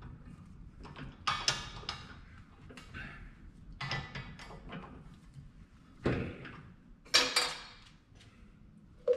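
A handful of sharp metal clanks and knocks at uneven intervals from steel pipe and tools being handled at a drill press, two of them close together about seven seconds in. The last clank, near the end, rings briefly.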